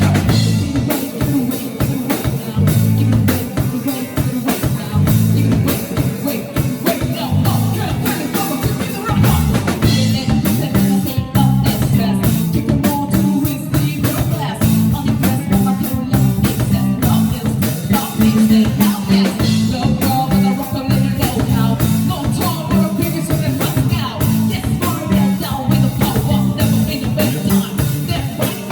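Live band playing a song, with a drum kit beat over a run of low bass notes.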